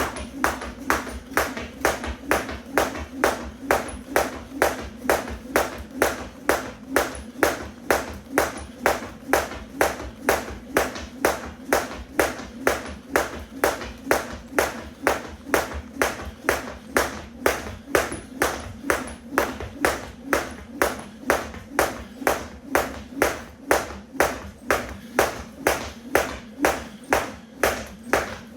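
Weighted 1 lb jump rope slapping the floor on each turn in a steady rhythm, about two slaps a second, as someone skips without a break.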